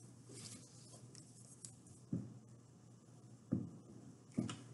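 Glue stick rubbed over a sheet of paper on a tabletop, faint scrubbing strokes, with three dull thumps, one about two seconds in and two near the end.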